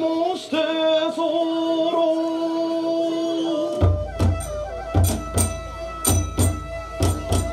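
Kagura accompaniment: a long held pitched note, then about halfway through a drum and hand cymbals (tebyōshi) strike up in a steady rhythm of deep beats with ringing metallic clashes.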